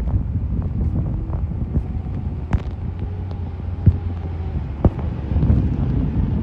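Low, steady rumble of a heavy truck engine running, with wind buffeting the microphone and a few sharp knocks, about three in the middle.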